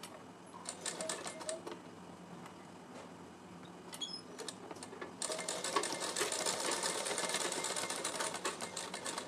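Sewing machine stitching through fabric: a short burst of rapid stitches about a second in, then a longer, louder run of steady stitching over the second half.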